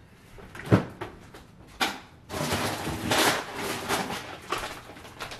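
Two sharp clicks from a kitchen door about a second apart, then about three seconds of rummaging and plastic rustling as a bag of frozen mixed berries is fetched.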